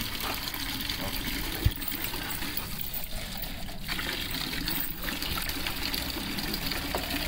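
Tap water running in a thin steady stream and splashing into a plastic basin of water, with one low thump about two seconds in.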